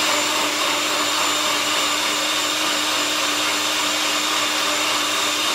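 A small electric kitchen-appliance motor, blender-like, running at a constant speed with a steady whine.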